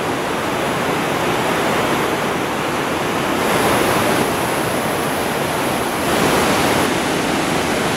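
The Aguas Calientes river rushing steadily, a loud, even wash of water noise.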